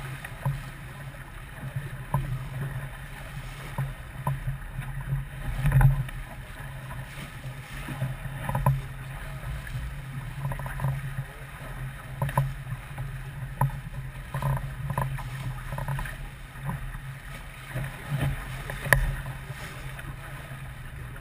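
Boat under way on the water: a steady low rumble with irregular knocks and clicks throughout.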